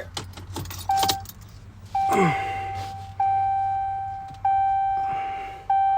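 Vehicle warning chime dinging over and over, one ding about every 1.2 seconds, each starting sharp and fading. This is the reminder a car sounds with the key in the ignition and turned on, here before the engine is started. Keys rattle at the start as the key goes in.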